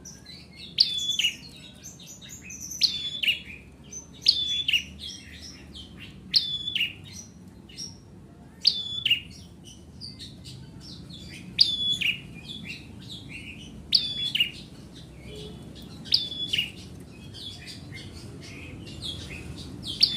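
A ciblek (prinia) songbird singing vigorously, repeating a short phrase every second or two: a sharp note followed by a falling whistle.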